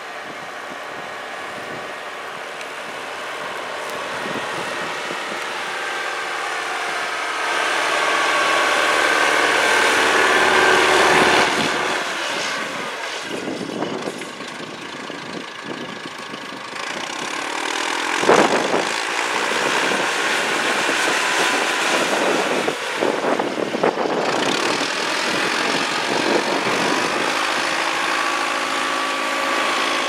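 Wheel loader's diesel engine running while it pushes snow, growing louder over the first ten seconds or so as the machine comes closer. A single sharp bang about two-thirds of the way through is the loudest sound.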